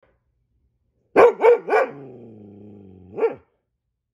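Goldendoodle giving deep alert barks at squirrels seen outside: three quick barks, a low growl that sinks slightly in pitch, then one more bark.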